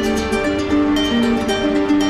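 Background music led by a plucked string instrument such as ukulele or acoustic guitar, playing a steady melody of short notes.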